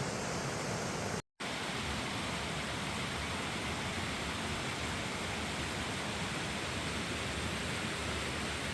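Creek water rushing steadily, an even wash of noise that drops out completely for an instant about a second in.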